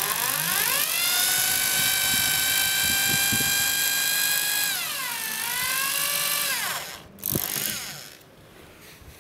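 Bosch GSB 18-2 RE corded drill with a cobalt HSS drill bit, run slowly to drill out a hardened steel M5 screw so the steel does not overheat and work-harden. Its motor whine rises as it speeds up in the first second, holds steady, dips briefly about five seconds in, then winds down and stops about seven seconds in. A couple of short knocks come near the end.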